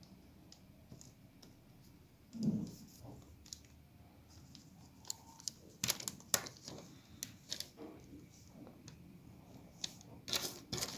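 Small sharp plastic clicks and taps as the loose louver slats of a Passat B5 centre air vent grille are handled and fitted back together, with a duller thump about two and a half seconds in.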